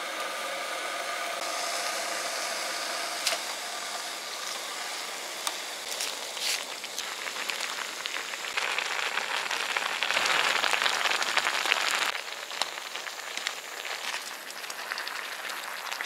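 Water and noodle soup bubbling in a metal mess-tin pan over heat, under a steady hiss; the bubbling is loudest around the middle, as the soup boils hard, with a few light clicks of utensils or packets.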